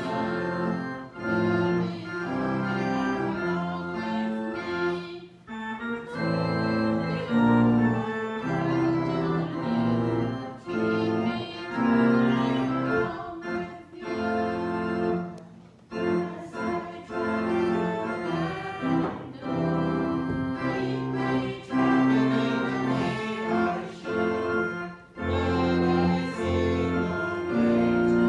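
Hymn tune played on a keyboard instrument in held, organ-like chords that change every second or so, with brief breaks between phrases.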